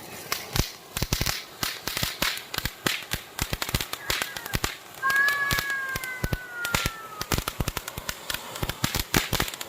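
A string of small firecrackers popping in rapid, irregular succession. About five seconds in, a long, falling, whining cry sounds over the crackle.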